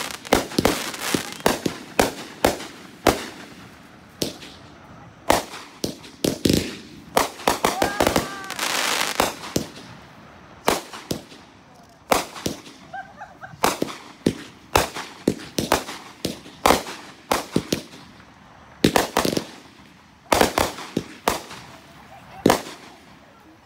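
Aerial fireworks going off: a rapid, irregular string of sharp bangs from the bursting shells, with a loud hissing, crackling stretch about eight to ten seconds in.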